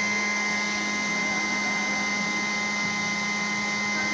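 A steady hum with a whirring hiss over it, holding one level without change.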